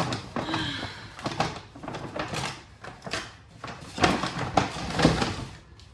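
Handling noise from grocery packages: rustling and a series of irregular knocks as items are picked up and set down, the loudest knocks about four and five seconds in.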